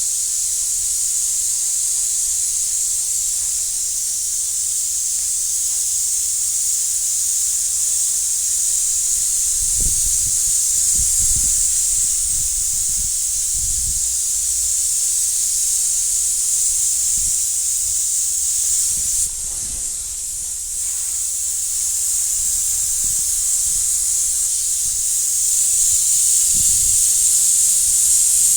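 Compressed-air paint spray gun hissing steadily as it sprays the pearl coat, with a brief drop in the hiss about two-thirds of the way through. A few soft low knocks come in the middle and near the end.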